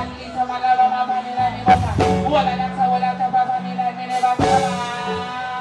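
Backing music played loud through a stage sound system: a low bass line under a long held high tone, with sharp hits about two seconds in and again later.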